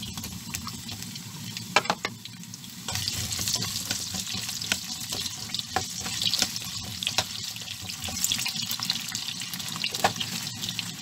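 Potato chunks and sliced carrots frying in hot oil in a non-stick pan, with a few knocks of bowl or spatula about two seconds in; from about three seconds the sizzle turns louder and crackling as the vegetables are stirred.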